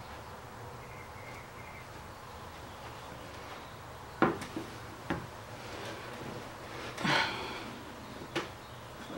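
Faint steady room hiss, then about four seconds in a sharp wooden knock, followed by lighter knocks and rustling as a person settles into a wooden chair.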